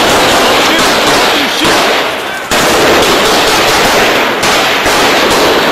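Loud, sustained gunfire close by, the shots running together into a dense clatter. It eases briefly just past two seconds, then picks straight back up.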